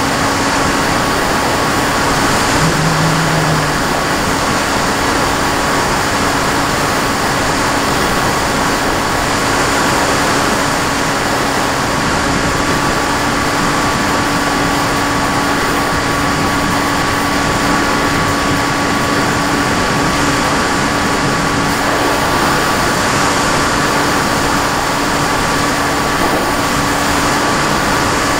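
Radio-controlled FPV aircraft's motor and propeller running at a steady speed: a constant whine over an even rush of noise, with no change in pitch.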